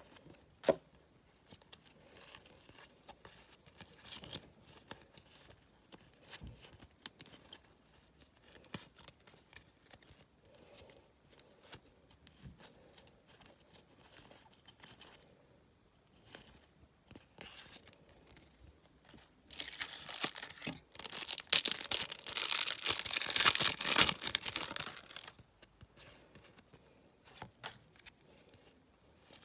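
Match Attax trading-card packets being handled, with scattered soft rustles and clicks. About twenty seconds in, a packet wrapper is torn and crinkled loudly for about five seconds.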